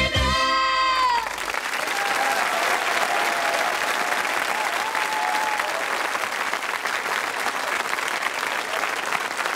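A woman's held final sung note with the band ends about a second in. Then a studio audience applauds steadily.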